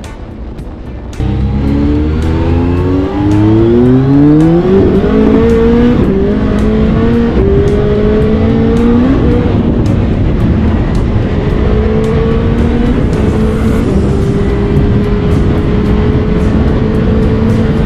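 BMW motorcycle engine accelerating hard through the gears, its pitch climbing and stepping back at each of several shifts, then holding a steady cruise. Faint music runs underneath.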